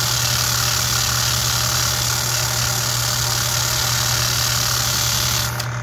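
Motor-driven sanding drum grinding down a copper rivet head that spins in a cordless drill: a steady motor hum under a hiss of abrasive on metal. The hiss cuts off suddenly near the end as the rivet comes off the drum, leaving the motor running.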